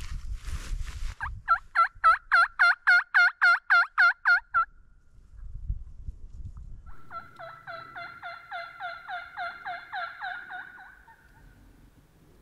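Hen turkey yelps on a turkey mouth call: a run of about a dozen evenly spaced yelps, then after a short pause a second, quieter run of about a dozen more that trails off near the end.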